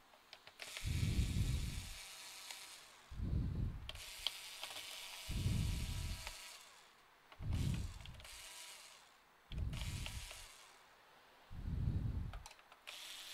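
A person breathing close to the microphone, one puff of breath about every two seconds with a softer hiss in between, and a few light clicks of hands handling the plastic of a laptop.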